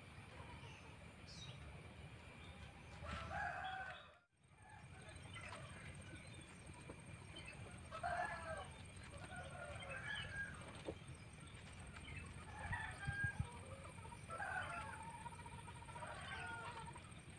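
Domestic chickens calling: a rooster crowing and hens clucking in a series of short calls, starting about three seconds in and recurring every couple of seconds.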